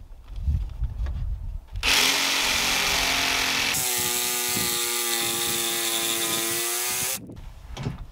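Ryobi cordless jigsaw cutting a birdsmouth notch into a 2x4 rafter: the motor whine starts about two seconds in, steps up in pitch partway through, and stops about seven seconds in.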